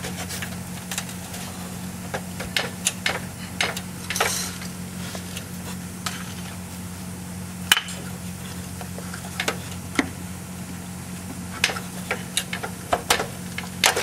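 Rusty metal emergency-brake cable conduit of a 2000 VW Golf being wiggled and twisted loose under the car: irregular metallic clicks and clinks, over a steady low hum.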